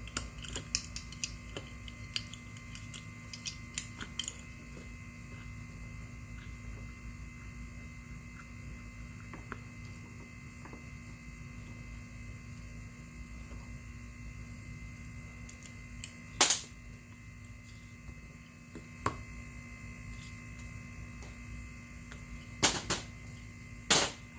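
Steady electrical hum, with light clicks of tools and parts being handled over the first few seconds, then four sharp knocks spaced a few seconds apart in the second half, from work on the scooter wheel's bearings.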